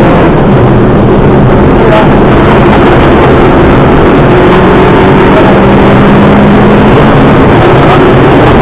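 Subaru Impreza rally car's flat-four engine running hard at fairly steady high revs under load at stage speed, very loud, over a constant rush of tyre and road noise heard from inside the car.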